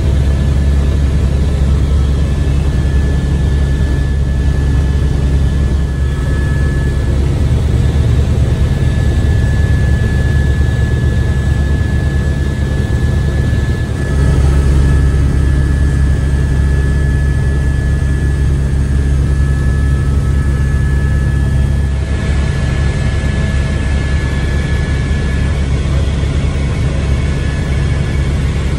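Helicopter engine and rotor noise heard from inside the cabin: a loud, steady low rumble with a thin high whine on top. The sound shifts abruptly twice, about halfway and again about three-quarters through.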